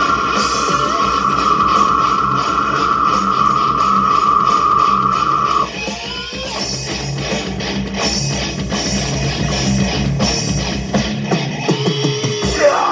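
Live band playing loud distorted electric guitar with drums. The sound thins about six seconds in, and near the end the low notes drop out as a guitar note slides down in pitch.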